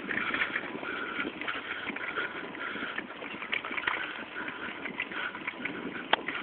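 Fixed-gear bicycle rolling along a dry dirt trail: the tyres crunch on dirt and straw, with many irregular clicks and rattles over bumps and one sharp knock about six seconds in.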